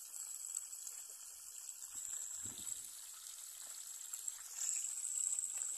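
Quiet outdoor ambience: a steady high-pitched hiss that grows louder about three-quarters of the way through.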